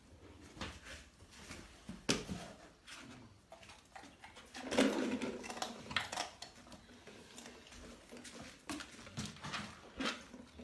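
Puppy's paws and claws tapping and scraping on a plastic exercise step: scattered light knocks and clicks, with a louder, muffled bump-and-shuffle stretch about five seconds in.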